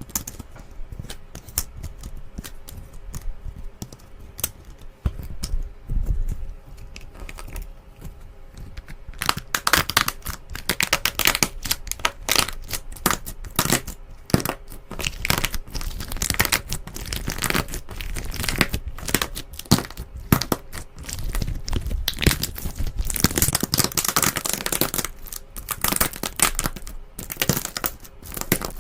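Slime being squeezed and worked by hand, giving a run of small pops and crackles. Sparse and quieter at first, it becomes louder and much busier from about nine seconds in.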